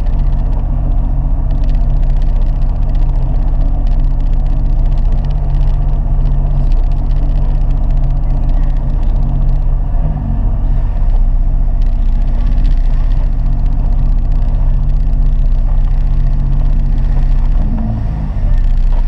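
Sea-Doo GTI 130 personal watercraft's three-cylinder four-stroke engine running steadily at low speed, with a brief dip and change in engine note near the end.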